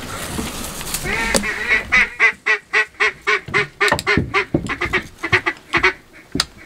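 Duck call blown in a long, fast run of quacks, about five a second, starting about a second in and breaking off near the end: calling to draw passing ducks in to the blind.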